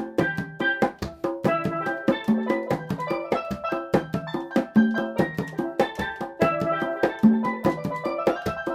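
Congas played by hand in an Afro-Cuban bembe rhythm in 6/8, a dense run of slaps and open tones. A MIDI wind controller plays short held notes over the drums.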